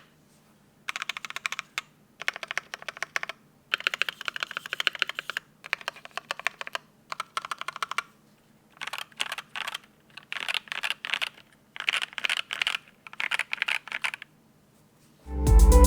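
Mechanical keyboard typing in bursts of fast keystrokes with short pauses. The switches are lubed and filmed Durock Mauve linears with nylon top housings, in a clear polycarbonate Think6.5 case with a 4mm integrated polycarbonate plate and PBT keycaps. Music comes in near the end.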